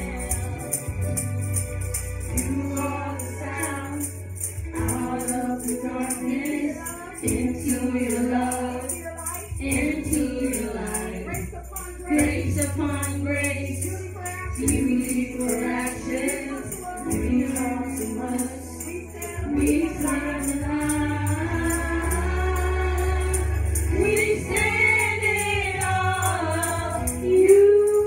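A small group of voices singing a gospel worship song into microphones, over backing music with a bass line and a steady, high percussion beat like a tambourine.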